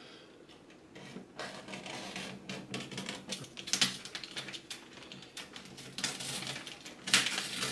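Packing tape and brown paper being picked, cut and torn open on a wrapped parcel: a quick run of small scratchy clicks and crinkles, starting about a second and a half in and growing busier near the end.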